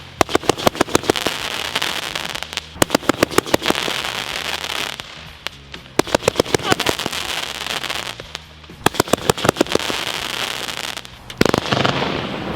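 Consumer firework going off: about five volleys of rapid crackling pops, one every two to three seconds, with a steady hiss between them.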